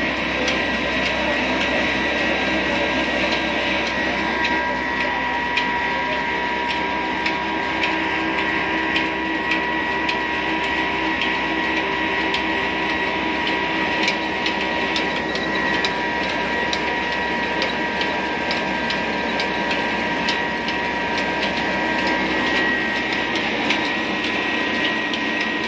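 Old belt-driven flour mill powered by a stationary diesel engine, running steadily: a continuous mechanical din with a steady high whine and a stream of short irregular clicks from the belts, pulleys and grinder.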